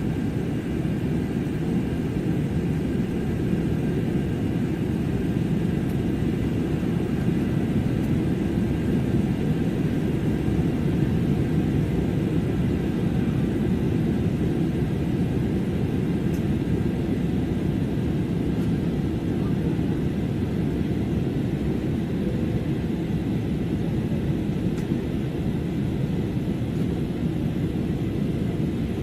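Airliner cabin noise in flight: a steady low rumble of engine and airflow noise with a faint steady high whine above it, unchanging throughout.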